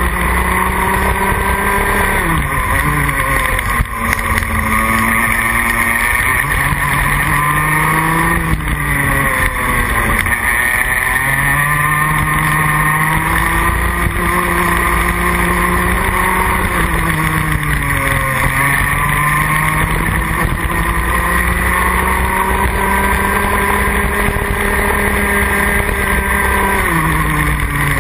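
Rotax Max Junior 125cc single-cylinder two-stroke kart engine at racing speed, heard onboard. The revs drop sharply four times (about two seconds in, around nine seconds, around eighteen seconds and near the end) as the kart brakes into corners, then climb steadily again under acceleration.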